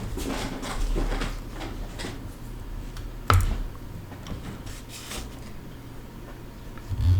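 Scraping and rubbing of hands and tools working on an iPad's glass during a repair, with a sharp click about three seconds in and a thump near the end, over a steady low hum.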